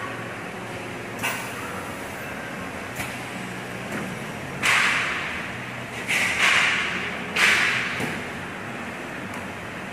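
High-frequency blister welding and cutting machine cycling over a steady hum: a couple of sharp clicks, then several short, loud hisses of air from its pneumatic cylinders about halfway through.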